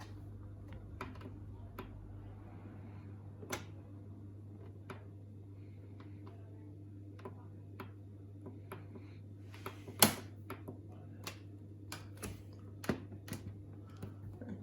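Indesit EDCE85 condenser tumble dryer running: a steady low hum with irregular clicks and knocks as the load tumbles in the drum, one much louder knock about ten seconds in.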